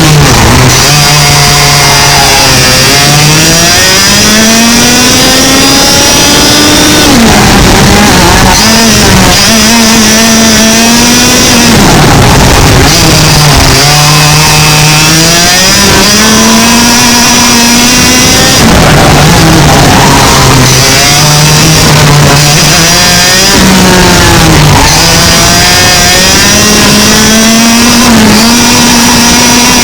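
100cc two-stroke kart engine at racing pace, loud throughout. Its pitch climbs steadily on each straight and drops sharply when the driver lifts for the corners, several times over.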